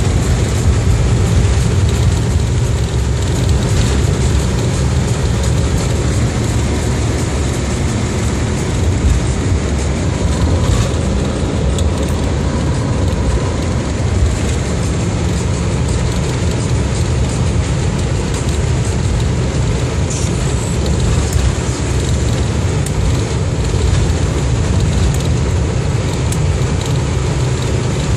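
Steady road and engine noise from inside a moving vehicle driving through a road tunnel, heavy in the low end and without a break.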